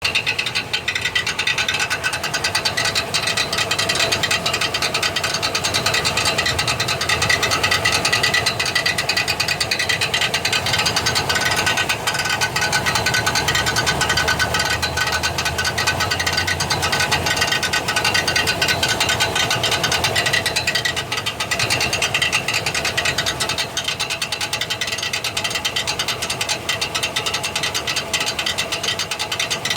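Faulty starter on a 1999 Silverado 1500's 4.8 V8 making a steady, rapid metallic clatter: the worn Bendix drive is bouncing off the flywheel instead of meshing.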